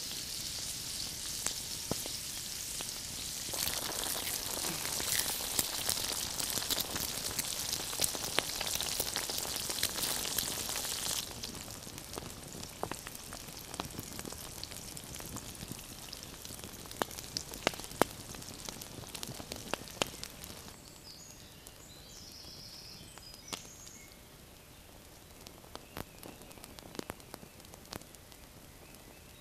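Meat and eggs sizzling in hot fat in a pan over a campfire: a loud, dense sizzle for about the first ten seconds, then a quieter sizzle with many small pops and crackles, fading to faint with scattered clicks in the last third.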